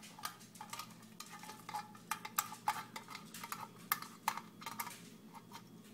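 Light, irregular metallic clicks and taps of a hand tool working the nut on the underside of an old metal lamp base, loosening it.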